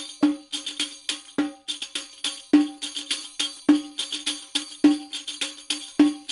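Rhythmic percussion music: a pitched drum stroke a little over once a second, with rattling, jingling hits between, like a tambourine.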